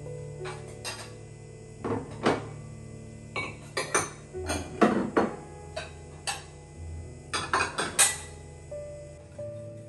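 Ceramic bowls and plates clinking and knocking against each other and the wooden countertop as they are stacked, a run of sharp clinks in several bunches.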